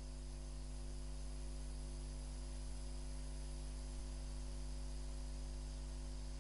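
Faint steady electrical hum and buzz under an even hiss, with no change and no other sound.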